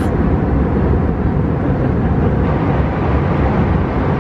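Loud, steady rumble and rush of an airliner cabin, the jet engines and airflow running with no break.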